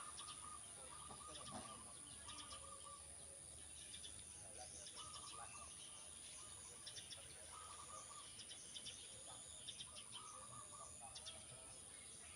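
Faint outdoor ambience with a bird repeating short, trilled calls every second or two.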